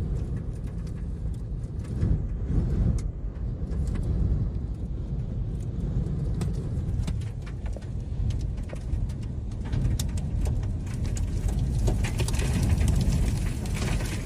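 Extreme wind gusts buffeting a storm chaser's vehicle: a heavy low rush that swells and eases. From about ten seconds in, quick ticks of blown dust and debris strike the vehicle more and more often.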